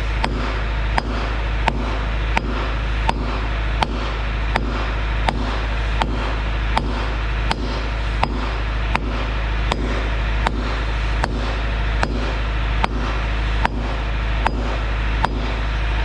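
Steady hammer blows, about three every two seconds, each a sharp metallic ring, driving a worn lower boom pivot pin out of its bore in a Kubota SVL90-2 skid steer's boom. A steady low hum runs underneath.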